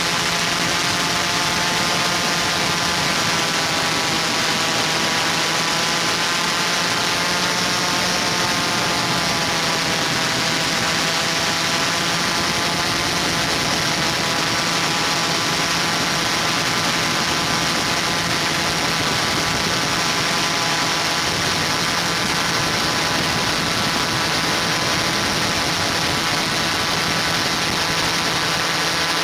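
Multirotor drone's electric motors and propellers humming steadily, a whine of many close pitches over a hiss, wavering a little in pitch a few seconds in.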